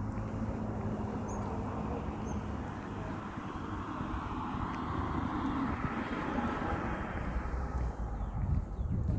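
A car passing on the road: its tyre and engine noise swells to its loudest about six seconds in, then fades, over a steady low rumble.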